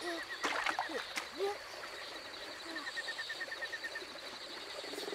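Forest ambience: a fast, evenly pulsing insect-like trill with scattered bird chirps and a few soft clicks. The trill fades out about three and a half seconds in.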